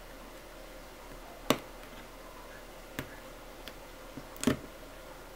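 A small hand tool clicks and taps against the edge of an LCD backlight panel while an LED strip is pressed into place. There are about five short, sharp clicks, the loudest about a second and a half in and another near the end.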